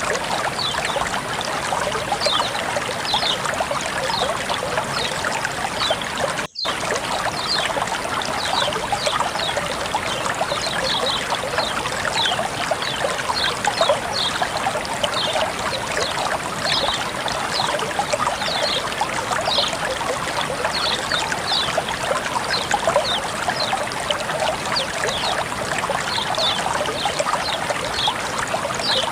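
Continuous trickling, flowing water, dotted with many short high plinks and broken by a split-second gap about six and a half seconds in.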